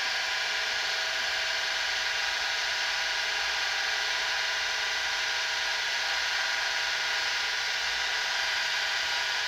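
Small electric water pump running steadily, an even hum with a high whine, as it draws water through a freshly primed supply line.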